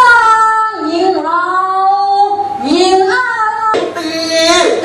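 A high voice singing the vocal line of a Thai puppet show in Thai classical style, in a few phrases of long held notes that slide between pitches.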